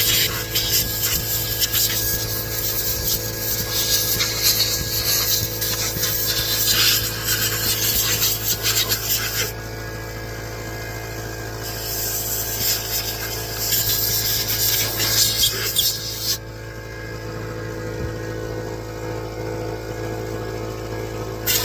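Repeated rasping, scraping strokes of a hand tool rubbing against a part, pausing for about two seconds near the middle and dying away for the last five seconds.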